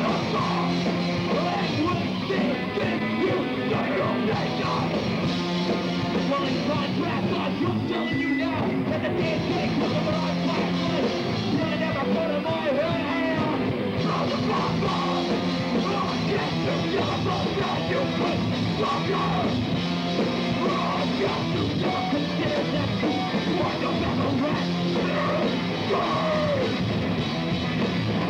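Hardcore punk band playing live: loud electric guitars and drums with shouted vocals, running on without a break.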